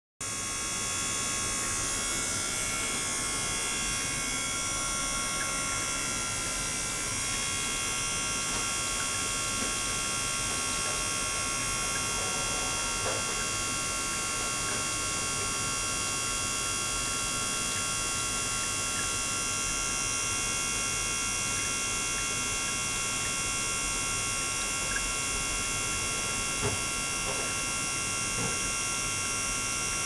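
Ultrasonic tank system running: a steady buzzing whine made of many high, steady tones, with a few faint ticks near the end.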